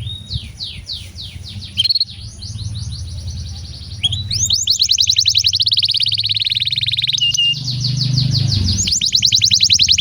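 Domestic canary singing a long song made of rapid trills, each a fast run of repeated falling notes. The trills change every few seconds and speed up into a louder, denser roll about four seconds in.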